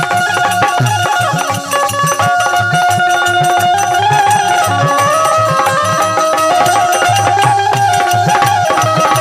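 Folk instrumental interlude: a dholak barrel drum keeps a steady beat under a harmonium playing a stepping melody of held notes.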